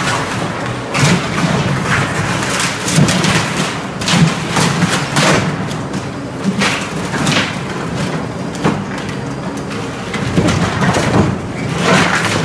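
Caterpillar 226B skid steer's diesel engine running while its grapple bucket crushes and shoves wooden shelving racks, with repeated irregular cracks and crashes of breaking wood over the steady engine.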